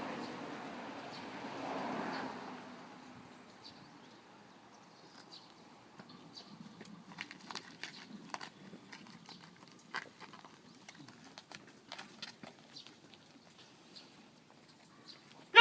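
A steady rushing noise that fades out within the first three seconds, followed by scattered light clicks and knocks.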